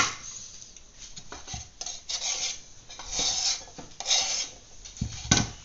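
Kitchen knife cutting celery stalks on a cutting board: several scraping cuts about a second apart, then a sharper knock near the end.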